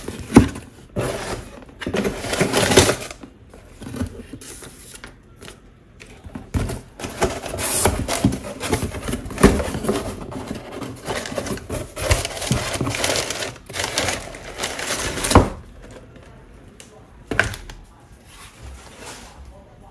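A cardboard shipping box is torn open along its tear strip: ripping and rasping cardboard, with flaps rustling and scraping as they are pulled back. Sharp knocks of the box being handled come several times, one about fifteen seconds in.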